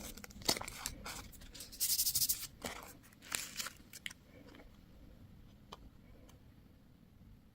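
Packaging crinkling and tearing in a quick run of crisp rustles for about four seconds, then a couple of light clicks.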